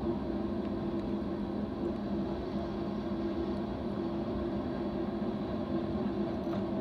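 Freight cars of a manifest train rolling past on the rails: a steady rumble with a low hum running through it.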